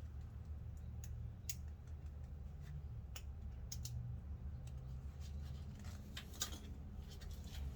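Scattered light metallic clicks and clinks of brake pads and caliper hardware being handled, the sharpest about six and a half seconds in, over a steady low hum.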